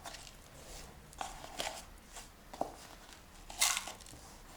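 A few brief, soft rustles and scrapes of things being handled, about five spread out, the strongest about three and a half seconds in.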